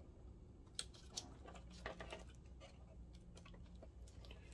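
A few faint, irregular small clicks of plastic parts being handled: a flat ribbon cable being fitted to a projector's keyboard circuit board and its connector.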